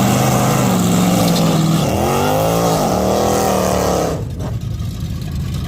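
Drag car engine revving hard: the pitch dips, climbs and falls again. About four seconds in it drops away to a lower, rougher running sound.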